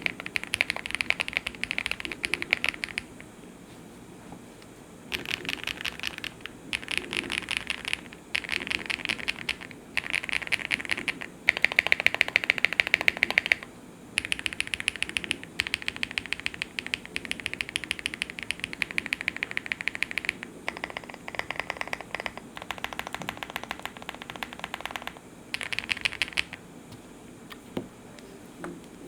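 Meletrix Zoom65 mechanical keyboard with lubed Gateron Soldark switches, PC plate and full stock foam, being typed on in fast bursts of keystrokes separated by short pauses. The burst about twelve seconds in is the loudest and deepest.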